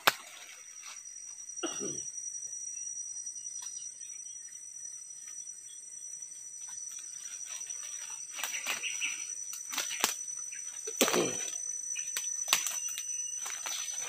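Forest ambience with insects droning at a steady high pitch, broken by a few short knocks or rustles, the loudest about eleven seconds in.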